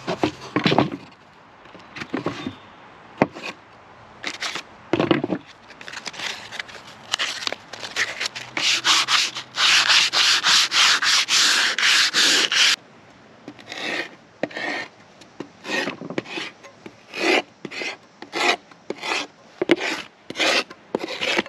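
Hand sanding plywood with a sheet of sandpaper: a dense run of quick back-and-forth strokes in the middle, then slower separate strokes about two a second. A few knocks near the start as the boards are handled.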